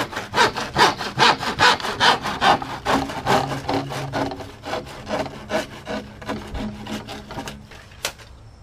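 A hand saw cutting through plastic drain pipe with steady back-and-forth strokes, about two or three a second. The strokes fade toward the end and stop with a sharp click as the cut finishes.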